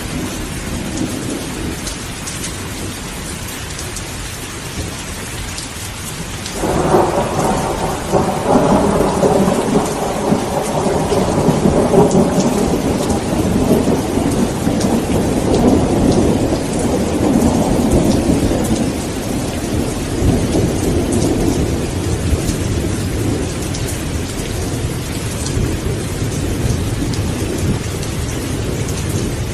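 Steady rain with thunder: about seven seconds in, a roll of thunder breaks in suddenly and rumbles on, slowly fading over the next dozen seconds or so.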